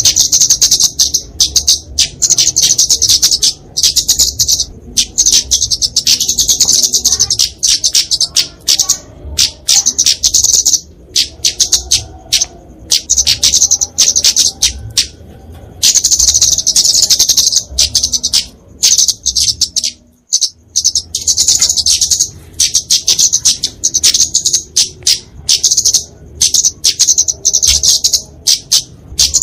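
A kemade flowerpecker (genus Dicaeum) giving its fighting song: rapid, high-pitched ticking chip notes in dense runs. The calls thin out for a few seconds in the middle and break off briefly about twenty seconds in.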